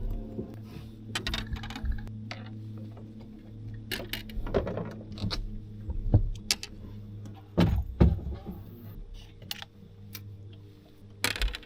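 Irregular clinks, clicks and knocks of small gear being handled on a boat, over a steady low hum.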